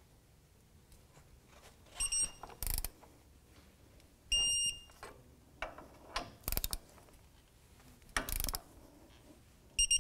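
Torque wrench ratcheting caliper bracket bolts in short bursts, with a high electronic beep three times: a faint short one about two seconds in, a longer one at about four and a half seconds, and another near the end. The beeps are the digital wrench signalling that the set torque, 88 foot-pounds, is reached.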